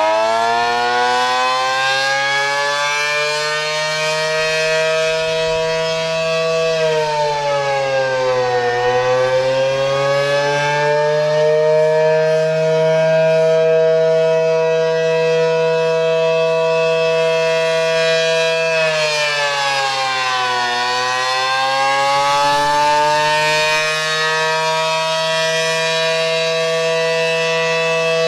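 Electromechanical outdoor warning siren sounding two tones at once. It winds up to a steady pitch, sags down about eight seconds in and winds back up, then dips and rises again about twenty seconds in.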